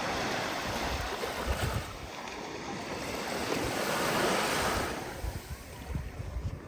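Ocean waves breaking and washing on the shore, a wave's hiss swelling about four seconds in and easing off, with wind buffeting the microphone.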